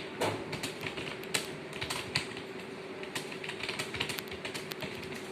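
Keys being typed quickly on a keyboard: a dense, irregular run of sharp clicks, with a faint steady hum underneath.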